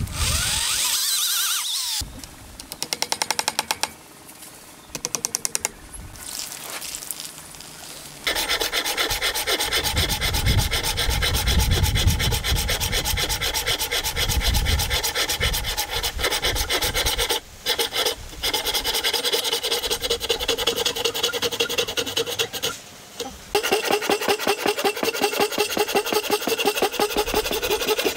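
A drill spinning down at the start, then a hand saw cutting across a hardwood beam with rapid back-and-forth strokes, sawing out the marked waste of a wood joint. The strokes are scattered at first and become steady and continuous from about a third of the way in, with two brief pauses.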